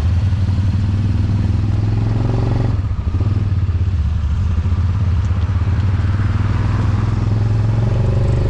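Side-by-side UTV engine running steadily at low revs, heard from the cab, with a steady low hum and some rattle.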